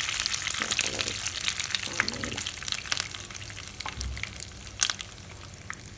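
Tempering for sambar sizzling in hot coconut oil: curry leaves, dried red chillies, mustard seeds and urad dal frying in a pan, with scattered crackles and pops. The sizzle gradually dies down.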